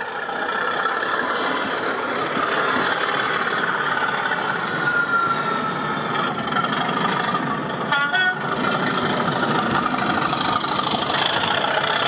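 Diesel engine sound from an O gauge model locomotive's sound system, running steadily as a Class 37 arrives hauling HEA coal hoppers, the level rising over the first second.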